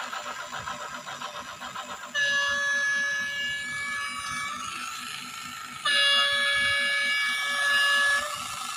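Toy DF4B diesel locomotive's sound effects: a rapid, even diesel-engine chug, then two horn blasts of about two seconds each, with the chug going on underneath.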